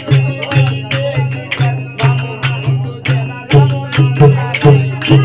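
Devotional bhajan music: a laced two-headed barrel drum beaten in a steady rhythm of about two strokes a second, with small hand cymbals clashing and ringing on the beat, and voices singing over them.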